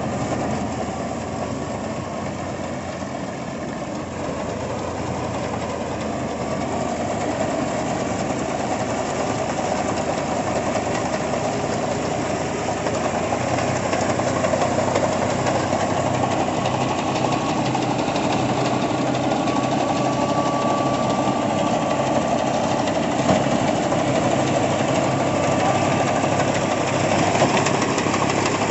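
Al Ghazi tractor's diesel engine running steadily while working a wheat reaper, gradually growing louder.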